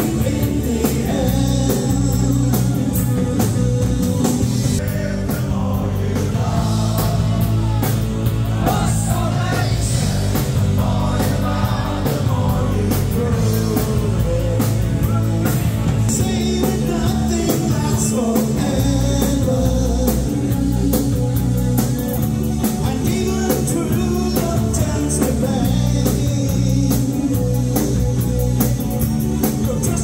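Live rock band playing a new wave song: a man's lead vocal over drums, bass guitar, guitar and keyboards, loud and steady.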